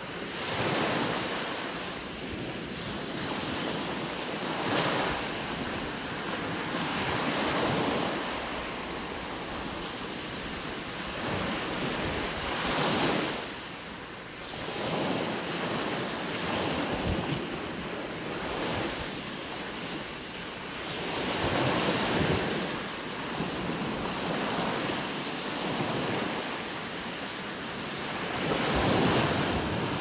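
Small sea waves breaking and washing up a sandy beach, the surf swelling and easing every few seconds, with louder surges now and then.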